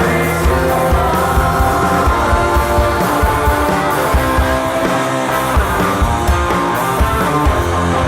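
Psychedelic stoner rock band playing live at full volume: electric guitars, bass and drums, with a steady beat of drum hits.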